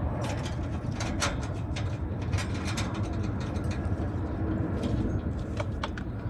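Irregular light metal clicks and taps of small hardware and hand tools as a washer and nut are fitted to an electrical disconnect box, over a steady low rumble.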